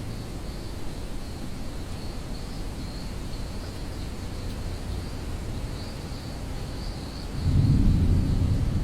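Storm ambience: a steady low rumble with insects trilling faintly and continuously. About seven and a half seconds in, a louder low rumble of thunder rolls in.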